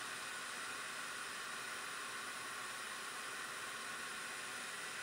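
Hakko FR810B hot air rework station blowing a steady hiss of hot air onto a soldered USB-C Thunderbolt port, heating its joints to free the connector.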